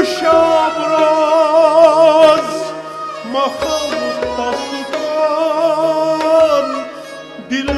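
Kashmiri folk song: a man sings long wavering notes over a harmonium, accompanied by bowed sarangi, rabab and tumbaknari goblet-drum strokes. The voice pauses briefly about three seconds in, then takes up the phrase again.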